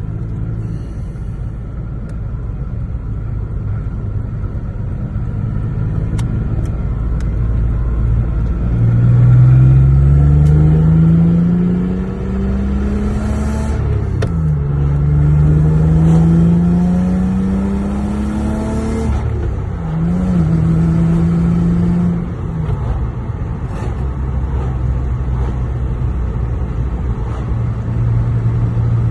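Lexus GS 300's 2JZ-GE straight-six accelerating through the gears of its swapped-in manual gearbox. The engine note climbs twice, dropping at each upshift, then holds steady before a last shift down to a lower, even cruise.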